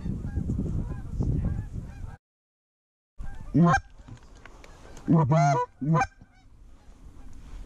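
Canada goose honks: four short, loud honks, each sweeping sharply upward in pitch, the third a longer double honk. They follow two seconds of rumbling noise on the microphone that cuts off abruptly.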